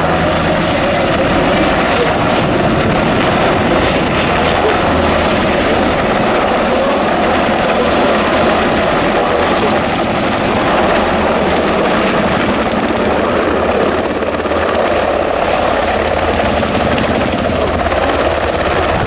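UH-60 Black Hawk helicopters flying low overhead and setting down, their rotors and engines making a loud, steady noise.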